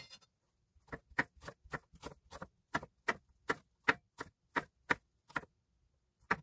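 Chef's knife slicing Korean zucchini into matchsticks on a wooden cutting board: a steady run of about fifteen strokes, roughly three a second, each blade knocking through onto the board, then a short pause and one more stroke near the end.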